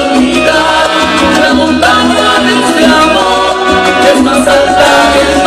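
Loud Latin dance music played over a sonidero's sound system, with a moving bass line under the band.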